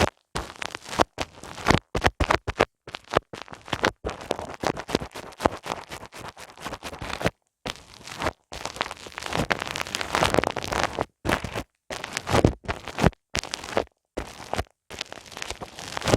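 Close-miked ASMR ear massage: hands rubbing and scratching on a microphone's ears, giving a dense, crackly friction noise that cuts out completely in several short gaps and starts again.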